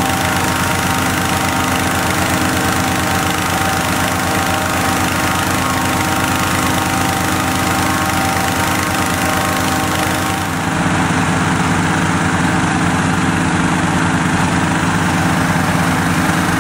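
Gas-engine inflator fan running steadily at the mouth of a hot air balloon, blowing cold air into the envelope. About ten seconds in the sound shifts and grows a little louder.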